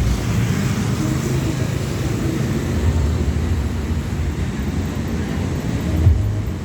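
Steady, loud low engine rumble of heavy vehicles running, with no clear start or stop.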